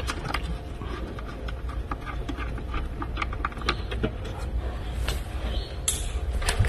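Scattered light clicks and clinks of hand tools and small metal fasteners being handled, a few sharper ones near the end, over a steady low hum.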